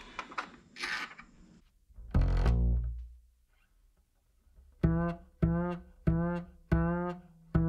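Background music: a single low note about two seconds in, a pause, then a run of plucked notes about twice a second from near the end. It is preceded by a few faint clicks of cable handling in the first second.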